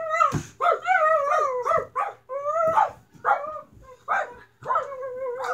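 Puppy-like whimpering and yipping: a string of short, high, wavering whines, about one every half second, with a longer held whine near the end.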